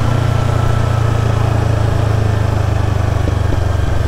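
Yamaha MT-03 motorcycle engine running steadily at a low pitch under the rider, with road and wind noise.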